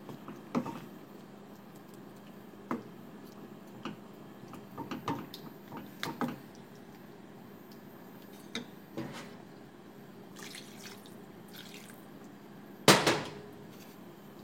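Creamy chicken sauce simmering in a pan, bubbling with scattered soft pops and clicks. A louder clatter sounds once near the end.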